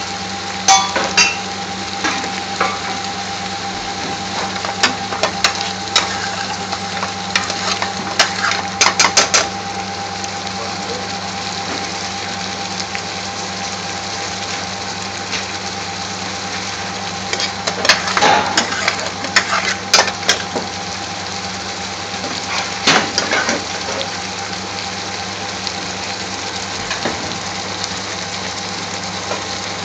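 Metal pans and a ladle clinking and clattering in scattered bursts, a quick run of clinks about nine seconds in and more around eighteen to twenty-three seconds. Underneath is a steady hiss and hum from the kitchen, where a thick curry is simmering in an aluminium pan on a gas burner.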